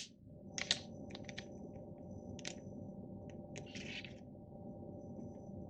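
Faint crinkling and rustling of an espresso pod's wrapper being torn open and the pod handled: a few short crackles, with a brief rustle about four seconds in, over a low steady hum.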